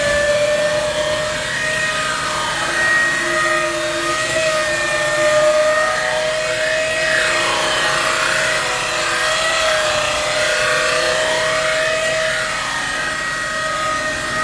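Hydraulically driven knife-sharpening grinder on a Fendt Tigo loader wagon's knife cassette, grinding the cutting knives, with sparks flying. Its motor runs at a steady whine, and the grinding sound sweeps up and back down a couple of times as the swivelling grinder passes along the knives.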